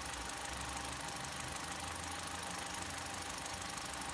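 Car petrol engine idling steadily, with a steady hiss over it.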